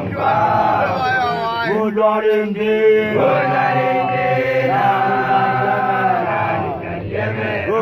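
Male voices of Basotho initiates chanting a song, with long held, wavering notes.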